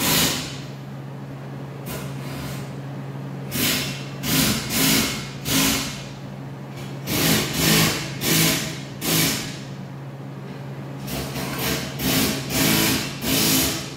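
Lincoln Power MIG 200 MIG welder laying short tack welds on steel key stock bars: about a dozen bursts of arc, each roughly half a second long, in three clusters. A steady low hum runs underneath.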